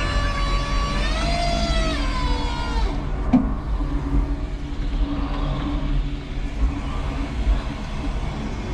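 A 5-ton electric forklift's electric motor whining, heard from inside the cab. The whine rises in pitch about a second in, falls away and stops about three seconds in, then a clunk and a lower steady motor hum follow.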